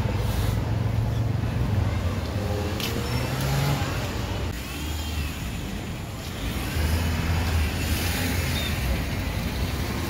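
Street traffic: cars and motorcycles running past with a steady low engine rumble that swells near the start and again about seven seconds in.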